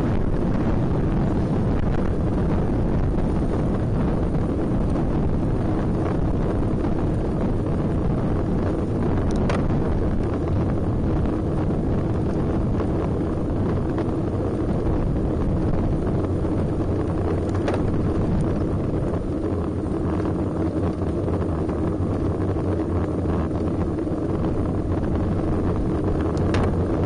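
Steady wind rushing over the microphone of a camera riding on a road bicycle, over the rumble of the bike rolling on the road. Three faint clicks are spread through.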